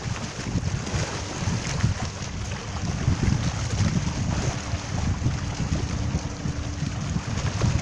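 Wind buffeting the microphone in gusts over the steady wash of rough sea surf.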